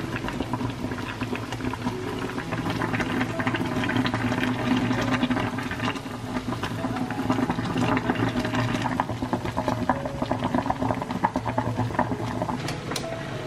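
Water at a rolling boil in a saucepan of egg noodles, a steady bubbling crackle.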